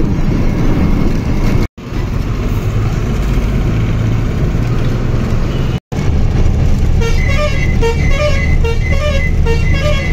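Loaded truck's engine running steadily, heard from inside the cab along with road noise, with two brief drop-outs in the sound. From about seven seconds in, a quick repeating series of short beeping tones at a few pitches joins, tagged as a vehicle horn.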